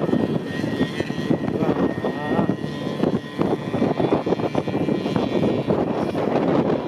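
Yamaha snowmobile engine running steadily as it tows an inflatable banana boat over snow, heard from the boat over a steady rushing noise.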